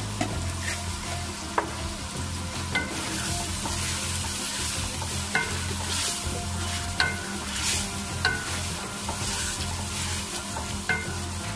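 Diced potatoes, peas and tomatoes sizzling in oil in a metal pot while a wooden spoon stirs them. The spoon knocks against the pot several times, and some knocks ring briefly.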